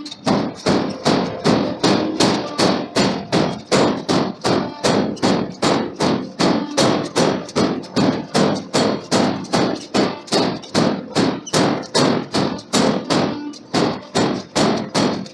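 Forging hammer striking hot steel in a steady, even rhythm of about three heavy blows a second. The blows start abruptly.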